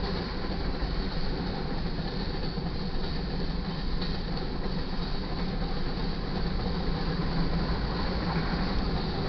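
Freight cars of a train rolling steadily past: a continuous rumble of steel wheels on rail.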